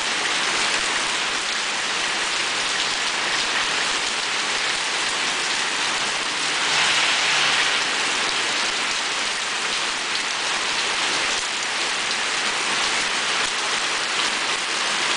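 Heavy rain pouring onto pavement: a dense, steady hiss, briefly louder about seven seconds in.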